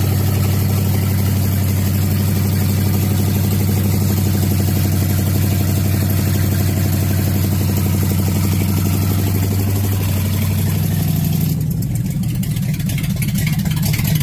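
Freshly installed 355 small-block Chevrolet V8 idling steadily. About three-quarters of the way through, the engine sound drops back and a clicking noise comes in over it.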